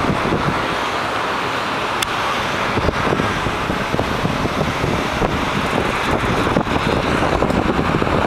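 Steady road and engine noise of a moving open-top sightseeing bus, with wind buffeting the microphone.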